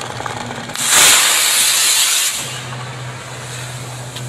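Small rocket motor on an RC car firing: a loud rushing hiss starts about a second in and is strongest for about a second and a half, then carries on as a quieter hiss with a steady low hum.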